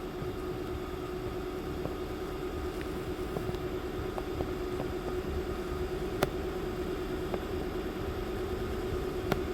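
Steady mechanical hum with a held low tone, like an idling vehicle or a running fan, broken by a couple of light clicks, one about six seconds in and one near the end.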